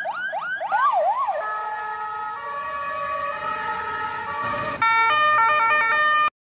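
Electronic ambulance siren in a fast yelp of rising sweeps, slowing to a couple of up-and-down wails about a second in. It gives way to steady held tones, and near the end a louder run of stepped electronic notes cuts off suddenly.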